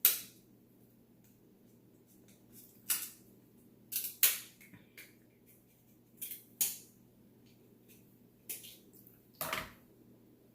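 Eating a seafood boil: a string of about eight sharp cracks and wet smacks, spread unevenly over ten seconds, as shells are broken open and the food is eaten close to the microphone.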